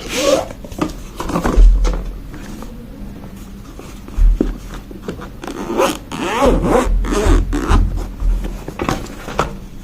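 Packaging of a GoPro Hero 10 box being cut and opened by hand: irregular scraping, rasping and rustling strokes of plastic and cardboard, with a few dull handling bumps.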